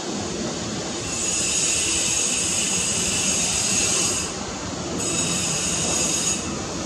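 Jet engines of a taxiing Boeing 787-8 (General Electric GEnx turbofans) running at taxi power: a steady low rumble under a high hiss. The hiss cuts in twice, first for about three seconds and then for about a second and a half.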